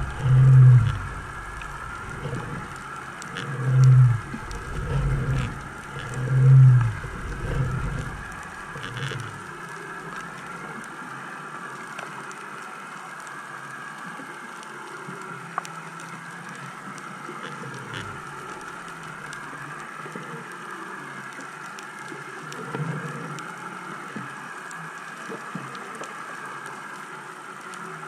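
Underwater sound through a submerged camera: several low, pulsing thumps in the first eight seconds, then a steady hum with a faint hiss and a few light clicks.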